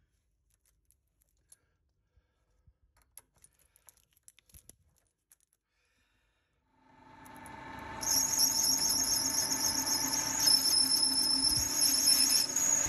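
Faint clicks of a hex key tightening a cutting tool in a lathe tool holder. About seven seconds in, the lathe starts and spins up, and from about eight seconds the tool cuts a groove into a spinning metal pulley blank, with a steady high whine from the cut.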